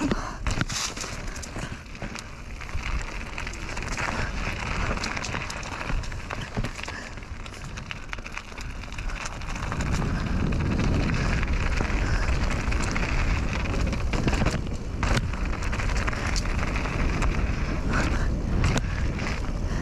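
Mountain bike riding down a dirt trail: tyres rolling over dirt and rocks with frequent rattles and clicks from the bike, and wind rumbling on the action camera's microphone. The wind rumble grows stronger about halfway through as the bike picks up speed.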